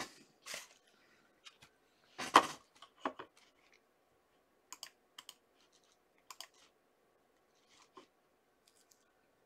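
Trading cards being handled: scattered light clicks and taps as cards are shuffled and slid against each other, with one louder knock about two seconds in.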